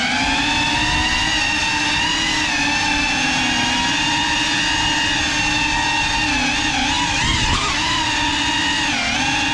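FPV quadcopter's motors and propellers whining steadily, the pitch dipping and rising briefly a few times in the second half as the throttle changes.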